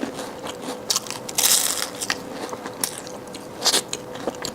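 Close-miked eating and tableware sounds: scattered sharp clicks, with a longer crackling rustle about one and a half seconds in and another sharp crackle near the end.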